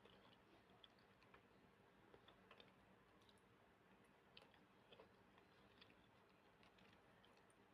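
Faint, irregular small clicks of someone chewing kiwi fruit.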